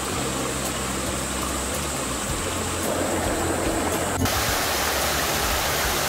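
A mountain stream splashing and trickling over mossy rocks. About four seconds in, it gives way to the louder, brighter rush of a small waterfall pouring into a pool.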